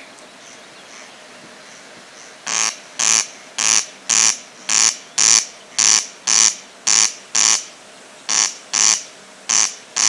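Corncrake giving its rasping "crex crex" call: loud, dry double rasps repeated about once a second, starting about two and a half seconds in.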